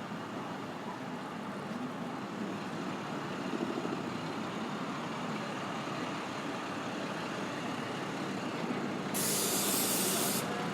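City street traffic noise, with a sudden loud hiss of air about a second long near the end, from a heavy vehicle's air brakes.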